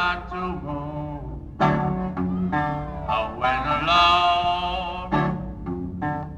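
Live slow blues performance: male vocals singing with guitar accompaniment, in a lo-fi recording with a steady low rumble underneath.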